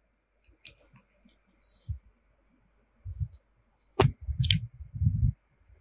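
Scissors snipping and clicking through brown pattern paper, with the paper rustling and soft thuds as the cut piece is handled and pressed flat. The sharpest click, about four seconds in, is the loudest sound.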